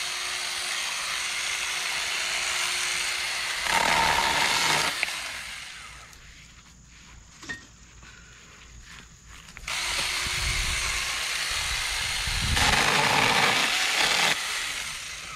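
Battery-powered Saker 4-inch mini electric chainsaw running and cutting through thin dead branches, louder and harsher each time the chain bites. It runs down about five seconds in, is quiet for about four seconds, then starts again for a second cut.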